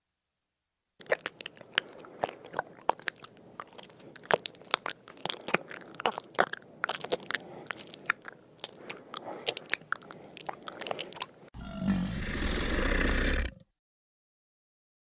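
An animal feeding: rapid, irregular crunching and clicking for about ten seconds. Near the end comes a loud, harsh burst of noise with a low rumble, lasting about two seconds and cutting off suddenly.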